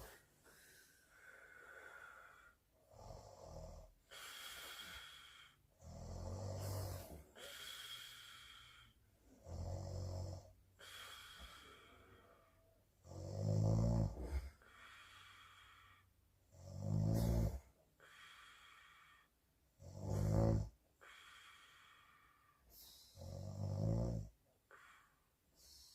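A woman snoring in her sleep, one slow snore about every three seconds, faint at first and growing louder about halfway through.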